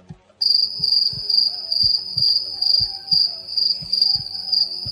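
Cricket-chirping sound effect, a steady high trill that starts abruptly about half a second in, with regular low thuds underneath: the 'crickets' gag for an awkward silence after a question.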